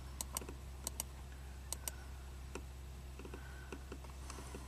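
Sharp clicks from a laptop being operated, several in quick pairs during the first two seconds and then fainter and sparser, over a steady low hum.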